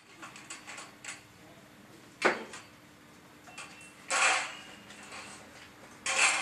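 Clatter of construction work on metal scaffolding: light ticks and taps, a sharp knock about two seconds in, and two short scraping noises about four and six seconds in.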